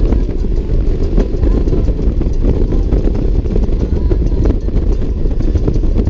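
Touring motorcycle riding at highway speed, heard from a camera mounted on the bike: a loud, steady rumble of engine and wind.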